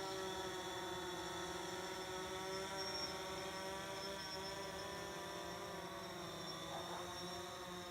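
Small quadcopter drone's motors and propellers giving a steady buzzing hum in flight, the pitch wavering slightly.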